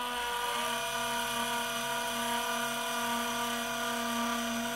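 Celestron CGX mount's declination drive motor and gearing slewing steadily, a constant whine with a squeak. The squeak comes only when the axis is driven in this one direction, and the owner cannot tell which adjustment screws would cure it.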